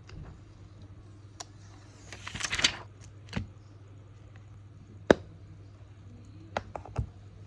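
Small hand tools and parts handled on a workbench during an iPhone XR screen repair: scattered sharp clicks and taps, with a brief rustle about two seconds in and the loudest click about five seconds in, over a steady low hum.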